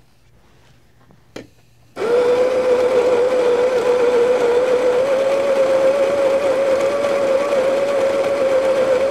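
A Baratza Preciso conical burr grinder starts about two seconds in, just after a short click, and grinds espresso beans into a portafilter with a steady motor whine whose pitch creeps slightly upward.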